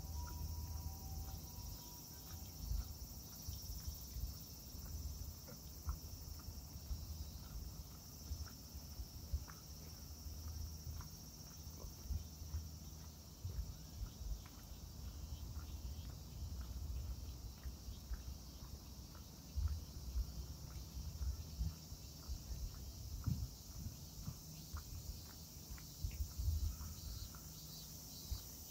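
A steady, high chorus of cicadas singing throughout, with irregular low thumps of footsteps underneath.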